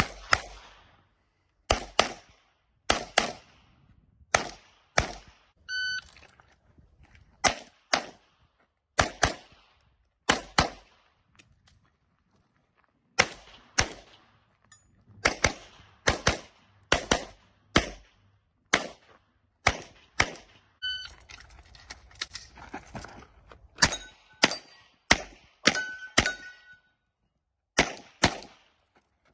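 Semi-automatic pistol fired in rapid strings: dozens of sharp shots, mostly in quick pairs, with pauses of one to three seconds between strings. A few shots are followed by brief metallic ringing from struck steel targets.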